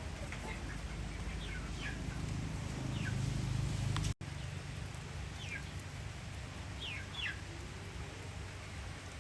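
Birds chirping in short falling calls, several times, over a steady low rumble. The sound cuts out for an instant about four seconds in.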